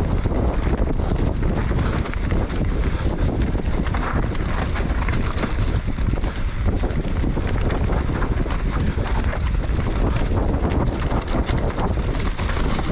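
Wind rushing over the microphone of a camera on a mountain bike riding fast downhill, with the tyres rolling over a dirt trail and a steady stream of small rattles and knocks from the bike.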